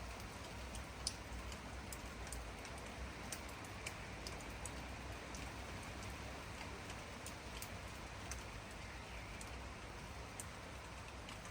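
Steady rain with many separate drops ticking close by, one sharper drop about a second in.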